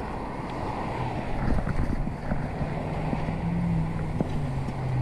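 Traffic on a busy street: the hum of passing vehicles, one dropping in pitch about four seconds in, with wind rumbling on the microphone.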